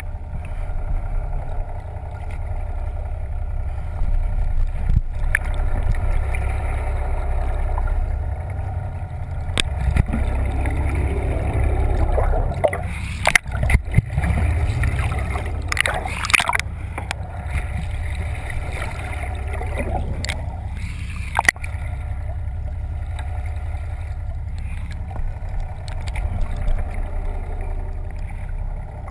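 Water heard through an underwater camera beside a boat hull: a steady low rumble with gurgling, and a few sharp knocks about 13, 16 and 21 seconds in.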